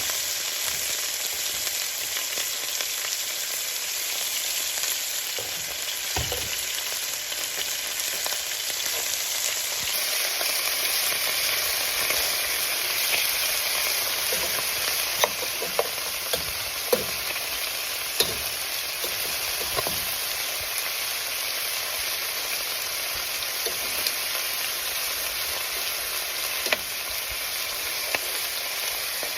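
Food sizzling in a frying pan, a steady hiss, with occasional sharp clicks of a utensil against the pan.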